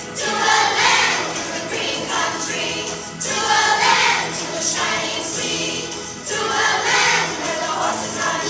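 A class of third-grade children singing a Veterans Day song together as a choir.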